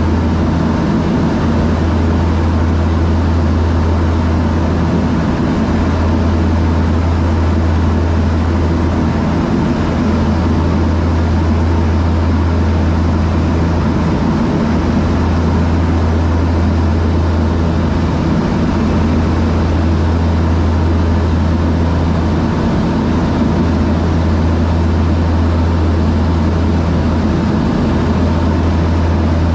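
Steady low drone of a de Havilland Canada DHC-6 Twin Otter's twin turboprop engines and propellers, heard from inside the cabin.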